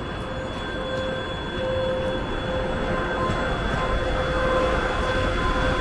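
EP2K electric locomotives pulling a passenger train away from a station at low speed, passing close. A steady whine sits over the rumble of the wheels on the rails, and it grows louder about a second and a half in as the locomotive draws near.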